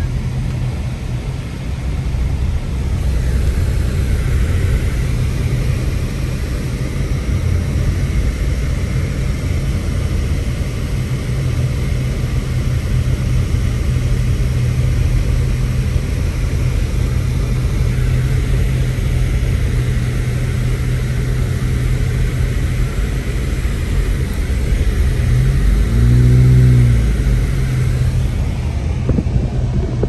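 A car driving on a snow-covered road, heard from inside the cabin: a steady low drone of engine and tyres. About four seconds before the end, a louder sound briefly rises and then falls in pitch.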